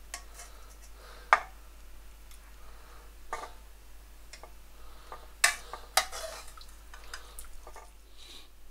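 Metal ladle clinking against the pot and serving bowl while curry is scooped out, a few separate sharp clinks with soft stirring and scraping between them.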